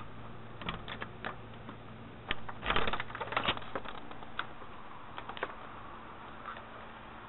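Irregular taps, clicks and scuffles, thickest about two and a half to three and a half seconds in: a cat's paws and claws scrabbling as it chases a laser dot. A faint steady hum runs underneath.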